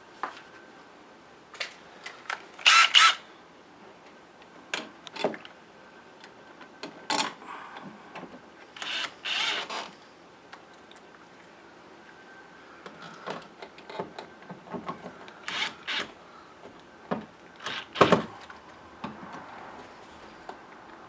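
Scattered clicks, knocks and a few short scrapes from a Decora three-way light switch being pushed into its electrical box and screwed into place. The loudest knocks come about three seconds in and again near eighteen seconds.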